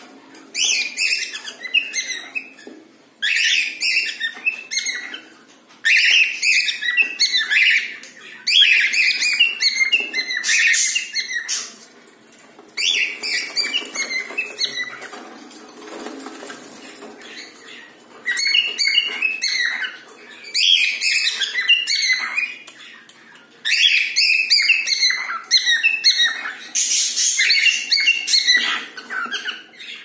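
Cockatiels chirping: bursts of quick, high chirps with short pauses between. In the middle comes a softer stretch with a brief flutter of wings.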